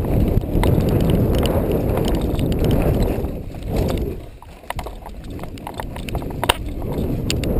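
Mountain bike rolling over a dirt trail, heard from a camera mounted on the bike: a steady low rumble of tyres and wind, with scattered sharp clicks and rattles from the bike. The rumble eases for a moment about four seconds in, then builds again.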